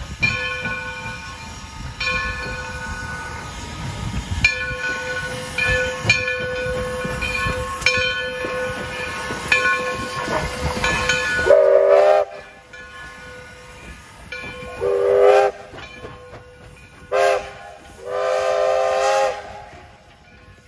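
Steam locomotive No. 60 pulling out, its bell ringing over and over above steam exhaust and hiss. About halfway through its chime whistle blows the grade-crossing signal: long, long, short, long.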